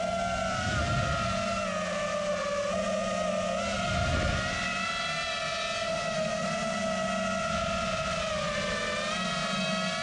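FPV racing quadcopter's brushless motors whining steadily, recorded from the drone itself. The pitch shifts a little with throttle, dips near the end, then climbs back.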